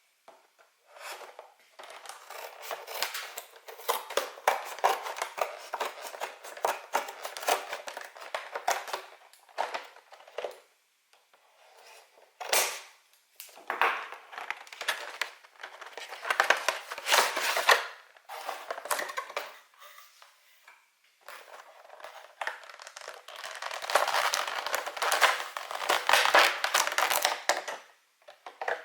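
Plastic packaging crinkling and crackling as it is handled and torn open, in bursts of several seconds with short pauses.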